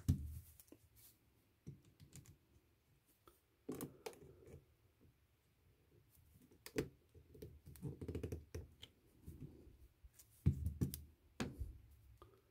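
Scattered light clicks and soft knocks of a hex driver and nut driver working a screw into a plastic Tamiya CR-01 axle housing, with the parts and tools being handled.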